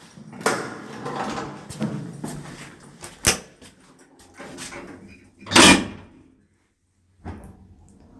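Hinged landing door of an old Zremb lift being unlatched and swung open, with clacks and knocks from the handle and latch. About five and a half seconds in comes the loudest sound, a short bang as a door swings shut.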